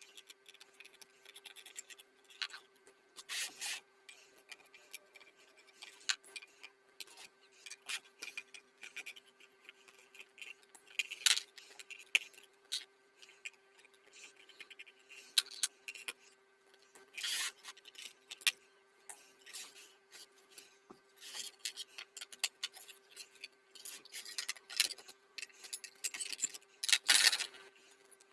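Irregular scraping and rubbing strokes, from hand work on small parts, with scattered sharp clicks and knocks. A steady faint hum runs underneath.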